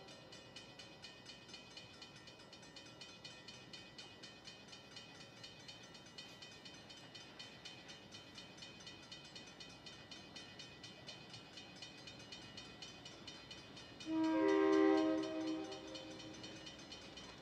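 A grade-crossing bell rings faintly with evenly spaced strikes. About fourteen seconds in, an approaching Providence & Worcester freight locomotive sounds its multi-chime horn once for about two seconds.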